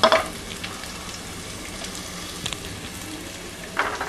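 Freshly added chopped onions sizzling steadily in hot oil in a kadai, with a few louder crackles near the end.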